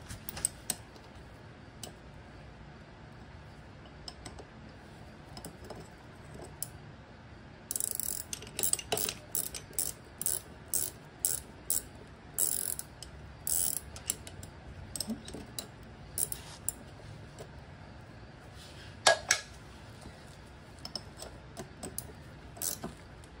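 Ratchet wrench clicking in short runs as it turns a 14 mm bolt on a motorcycle's front brake caliper, with one sharper knock about two-thirds of the way in.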